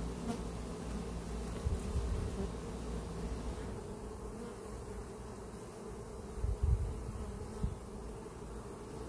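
Honeybees buzzing around an open hive, a steady hum. A few short low thumps come about two seconds in and again near the end.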